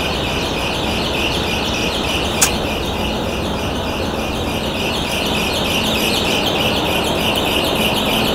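A dense chorus of many small birds chirping without pause, over a steady background hum of the barn. A single sharp click sounds about two and a half seconds in.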